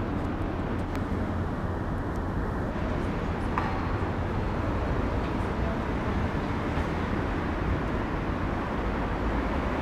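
Steady low rumble of city traffic, with a couple of faint clicks.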